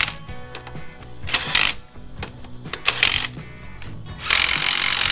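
Background music over a cordless drill run in three short bursts against a rusty axle hub, about a second and a half apart, the last and longest near the end.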